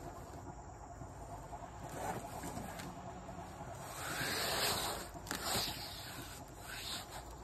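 Thin pool foam sheet rustling and scraping against concrete pool steps as it is bent and pressed into place, with a louder hiss about four seconds in and a small click just after.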